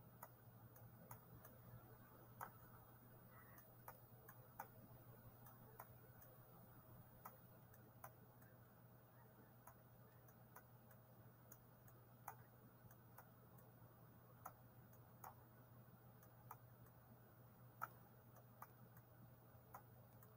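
Near silence: a faint steady hum with soft, unevenly spaced clicks, about one or two a second. The clicks are a computer mouse being pressed and released as numbers are drawn on screen with a pen tool.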